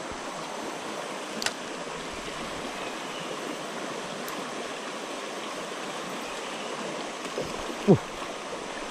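Steady rush of flowing river water, with a single short, loud falling sound just before the end.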